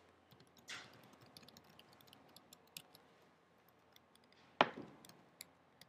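Faint typing on a computer keyboard: scattered light key clicks, with two louder keystrokes, one under a second in and a sharper one about two-thirds of the way through.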